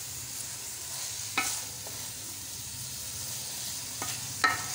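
Shredded cabbage being stirred and turned in a metal cooking pot over a steady faint sizzle, with two sharp, ringing clinks of the spoon against the pot, about a second and a half in and again near the end. The raw cabbage is being mixed into mutton already cooked in ghee.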